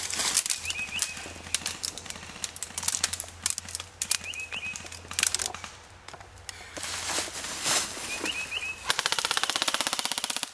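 Airsoft guns firing: scattered sharp single shots and pellet cracks, then a rapid steady full-auto burst of about a second and a half near the end. A bird's short chirping phrase repeats every few seconds underneath.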